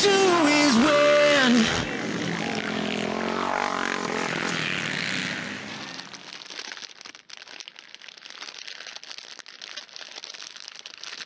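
A song with singing ends about two seconds in. Dirt bike engines then run in a race, the sound wavering in pitch, and fade about six seconds in to a quieter crackling hiss.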